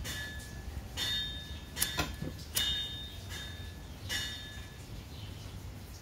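A hand-held lighter being struck over and over, about six sharp clicks at uneven spacing, most with a brief metallic ring, as it is worked to light.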